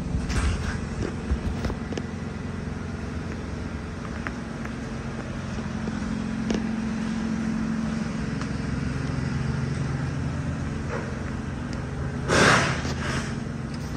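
Steady low mechanical hum, like an idling engine, with a few small clicks and a short loud rushing burst about twelve seconds in.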